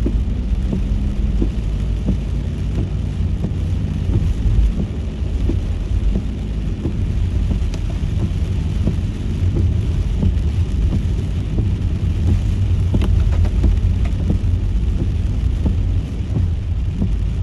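A car driving in the rain: a steady low rumble of road and engine noise, with scattered small taps of raindrops throughout.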